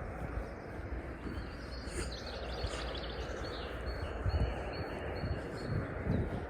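Birds chirping in short high calls over a steady low rumble of outdoor background noise.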